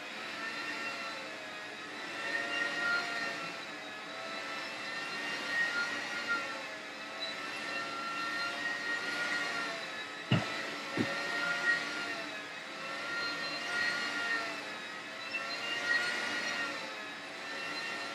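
Hoover floor scrubber running on a tile floor: a steady motor whine whose pitch wavers slightly as it works. Two sharp knocks about ten seconds in.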